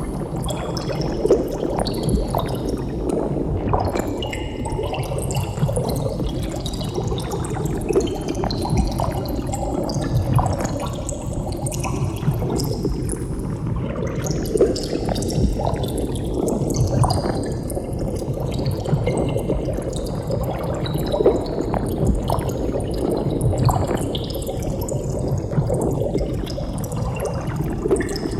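Water bubbling continuously, a dense stream of bubbles with many small pops and gurgles.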